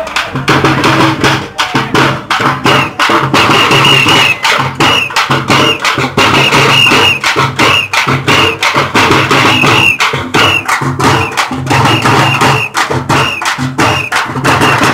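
A group of dappu frame drums beaten with sticks in a fast, dense rhythm. A high tone recurs in short bursts over the beat.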